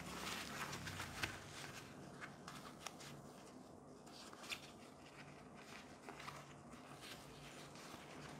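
Faint rustling and crinkling of a thin silk sleep eye mask with built-in headphones as it is unfolded and handled, with scattered light ticks, the sharpest about a second in.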